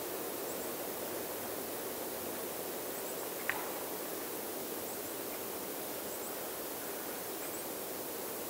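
Steady rushing outdoor ambience, an even noise like distant running water. Faint high double chirps come every second or so, and there is one brief sharp chirp-like sound about three and a half seconds in.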